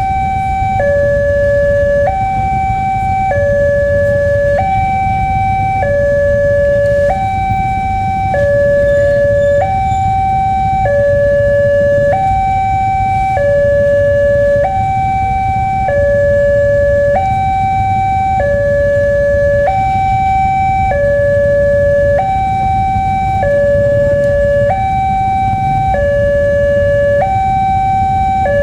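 Level-crossing warning alarm sounding a steady electronic hi-lo two-tone, each tone held a little over a second, signalling that a train is approaching and the crossing is closing. A low rumble runs underneath.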